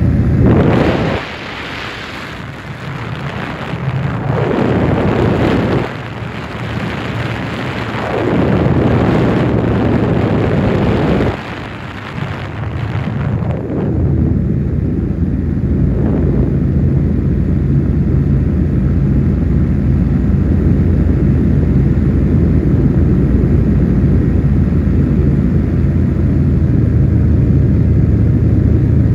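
On-board noise of a low-flying aircraft: four loud rushing bursts of a few seconds each over about the first fourteen seconds, then a steady low drone.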